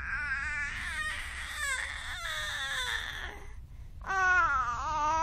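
Baby's sing-song vocalizing: long, drawn-out wailing notes that slide up and down in pitch, a breathier stretch in the middle, then a loud long note near the end.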